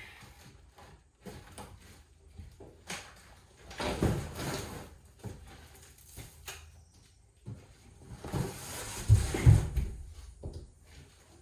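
Irregular knocks, clunks and scraping from hands-on stripping work in a bus interior, with two louder bouts of banging and scraping about four seconds in and again around nine seconds.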